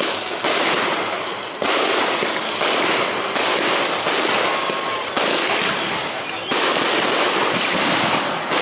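Fireworks display: aerial bursts with dense, continuous crackling, fresh bursts cutting in sharply about a second and a half, five, and six and a half seconds in.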